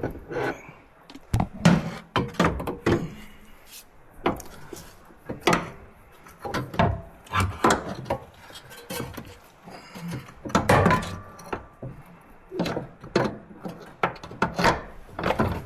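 Irregular clanks and knocks of metal tools and suspension parts being handled during a rear shock absorber swap, some with a short metallic ring, a dozen or more hits spaced unevenly.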